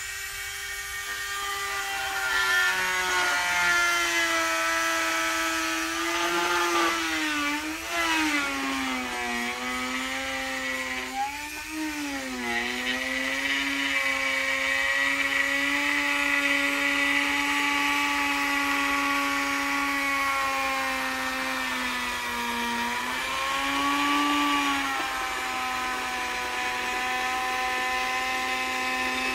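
Dremel rotary tool with a hole-cutting bit running at high speed, a steady whine whose pitch sags briefly several times as the bit loads up cutting a port hole in the center console.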